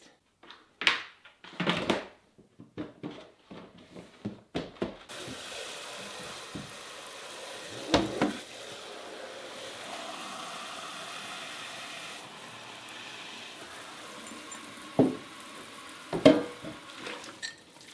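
Kitchen tap running steadily into a stainless-steel sink while glass jars are rinsed, with a few sharp knocks of glass against glass and steel. A few short rustles and knocks come before the water starts, about five seconds in.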